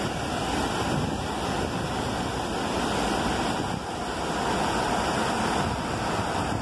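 River water pouring over a concrete dam weir and cascading down its stepped face: a steady rush of falling water, with wind buffeting the microphone.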